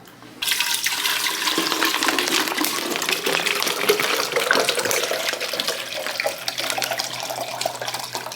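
Water running hard from a tap into a vessel, starting suddenly about half a second in, with a faint tone in the rush that slowly rises in pitch as the vessel fills.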